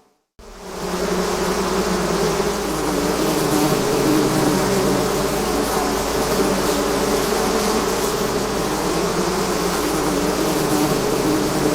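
Swarm of bees buzzing, a dense steady drone of many wingbeats with several held tones. A brief silence at the very start, then the buzz fades in within the first second and stays loud and even.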